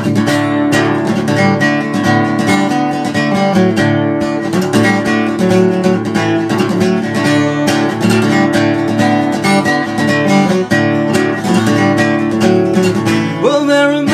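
Acoustic guitar strummed in a steady, even rhythm: the instrumental introduction of a folk song before the singing begins.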